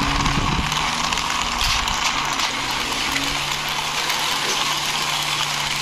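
Plastic toy excavator pushed by hand along a concrete ledge, its tracks rolling and scraping in a steady gritty noise. Under it, background music with sustained low notes that change every second or two.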